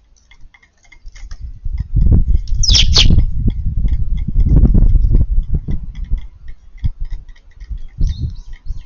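A Eurasian tree sparrow gives one short, sharp chirp about three seconds in, over repeated low thumps and knocks close to the microphone, with faint high ticking throughout.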